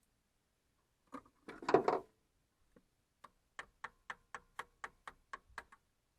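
A short metallic clatter, then a run of about nine even clicks, roughly four a second, from hand work on a stopped engine.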